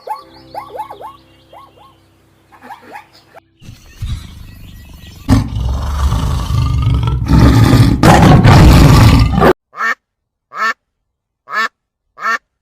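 Animal calls: faint chirping at first, then a loud rough noise lasting several seconds that cuts off suddenly, followed by a run of short duck-like calls about once a second.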